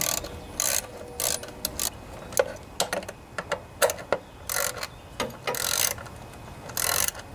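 Hand ratchet wrench clicking in short, irregular strokes, about ten in all, as bolts are run in to fasten a mower deck's plastic belt cover.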